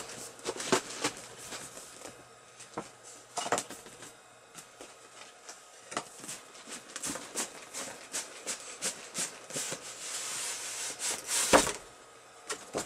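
Cardboard boxes being handled: scattered taps, clicks and rustles of cardboard, a longer scraping rustle, then a single thump near the end as a box is set down.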